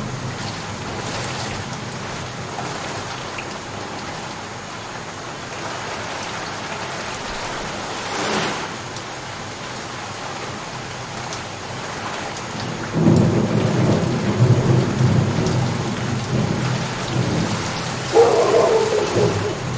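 Steady rain falling, with thunder rumbling in about two-thirds of the way through and growing louder near the end.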